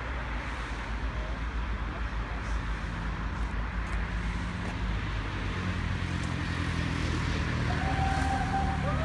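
Steam locomotive approaching along the track, a low rumble that grows steadily louder.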